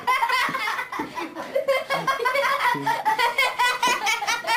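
Human laughter: quick, high-pitched giggling that comes and goes.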